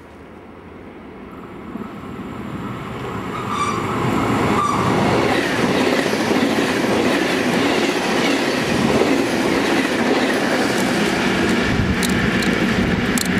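Passenger train passing through a station at speed close by: the noise builds from about two seconds in and stays loud and steady from about four seconds on, with a few sharp clicks near the end.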